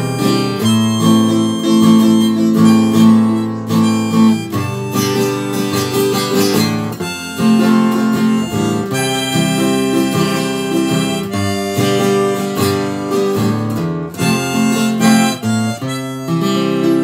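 Harmonica held in a neck rack playing a melody of sustained notes over acoustic guitar accompaniment, one player performing both at once.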